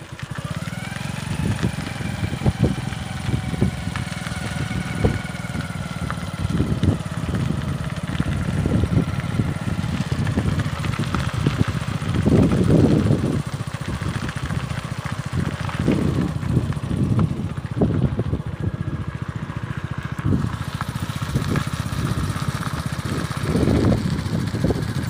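Wind buffeting the phone's microphone: a continuous low rumble that swells and drops in irregular gusts.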